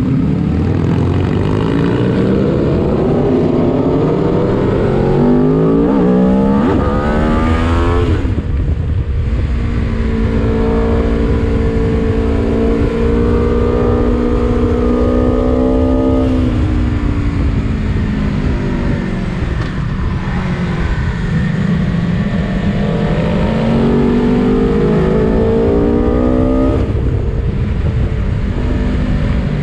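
Aprilia Tuono V4 Factory's V4 engine heard from onboard, pulling hard with its pitch climbing for the first several seconds, dropping sharply about eight seconds in, then holding steady at speed, easing off and climbing again before another drop near the end. Wind rush underneath.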